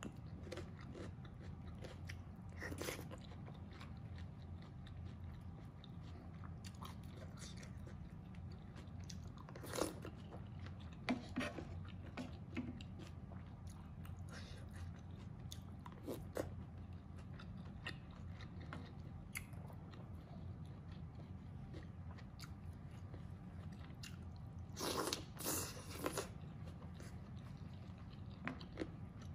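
Close-miked chewing and mouth sounds of someone eating mapo tofu from a wooden spoon, with scattered soft clicks and smacks. Near the end comes a short cluster of louder crackly sounds, over a steady low hum throughout.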